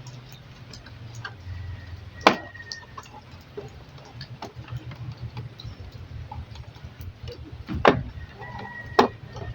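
Sharp plastic clicks and snaps as the front bezel of an LED TV is pried open, three louder ones about two, eight and nine seconds in, among fainter ticks over a steady low hum.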